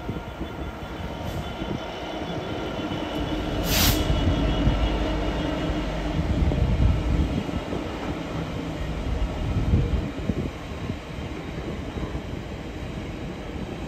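Freightliner Class 66 diesel locomotive passing at the head of a container freight train. Its two-stroke diesel engine runs with a steady drone over the rumble of the wagons on the rails, which grows louder through the middle. There is a brief sharp noise about four seconds in.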